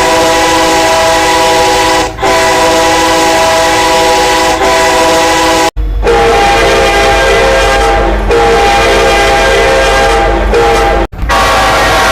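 Train air horns being test-sounded: a multi-note chord held in long steady blasts with short breaks. The chord changes abruptly twice, about six seconds in and about eleven seconds in, each time to a different-sounding horn.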